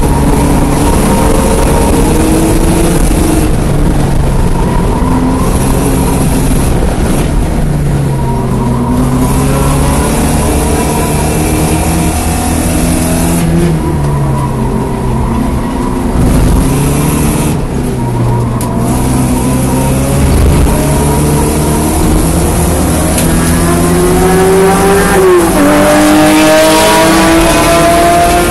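1987 Porsche 924S's 2.5-litre four-cylinder engine at racing pace, its pitch climbing under acceleration and falling away as the car slows, several times over, with an abrupt pitch change about 25 seconds in.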